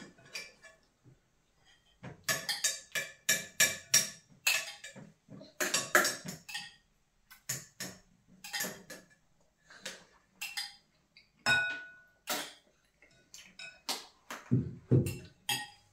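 Chopsticks and spoons clinking against ceramic and glass bowls while eating, a quick irregular run of light clinks, some ringing briefly, with a duller knock near the end.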